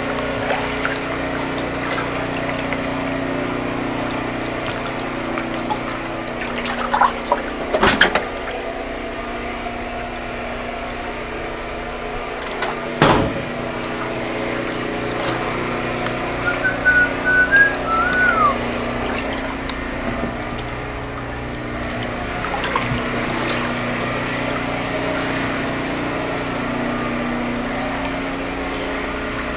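Floodwater sloshing and swishing in a flooded garage as someone wades through it, over a steady low hum. Two sharp knocks land about eight and thirteen seconds in.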